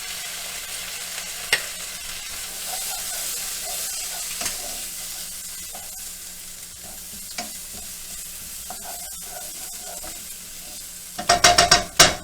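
Onions sizzling hard in a hot frying pan just after a splash of water has been added to stop them burning, the hiss easing slowly, with a few light taps of a utensil. About a second before the end, a quick burst of clanks of a utensil against the pan.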